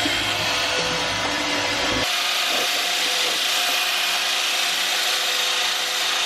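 Wire brush spinning on a power drill, scrubbing rust and corrosion off the steel griddle top with a steady, harsh scraping. About two seconds in the low rumble drops out abruptly while the scraping carries on.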